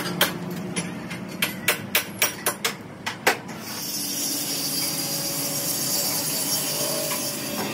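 About nine sharp metal hammer strikes in the first three and a half seconds, several coming in a quick run of about four a second. Then a steady high hiss takes over.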